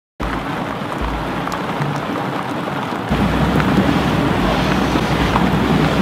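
Heavy rain pouring down in a steady hiss that grows louder and deeper about three seconds in.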